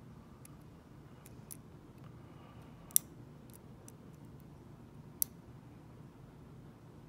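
Scattered small metallic clicks from a dimple pick working the pins inside a ZETA dimple slider padlock, with two sharper clicks about three and five seconds in.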